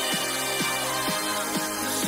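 Electronic background music with a steady beat, about two beats a second, over sustained synthesizer tones.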